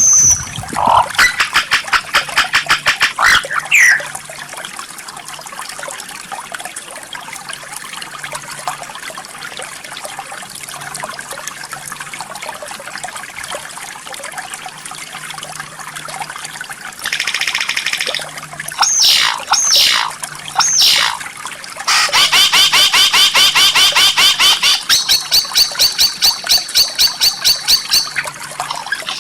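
White-rumped shama (murai batu) song: a fast rattling trill, then a long lull with only a faint steady hiss, then a buzzy note, a few sweeping whistles and a long, fast rattle of repeated notes near the end.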